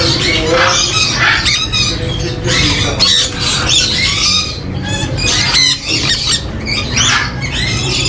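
Many caged parrots squawking and chattering at once, a dense tangle of short, harsh, overlapping calls.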